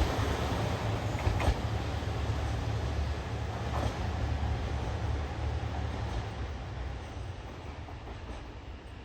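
KiHa 283 series diesel express train moving away, its diesel engines droning low, with a couple of sharp wheel clicks over the rails. It fades steadily as it recedes.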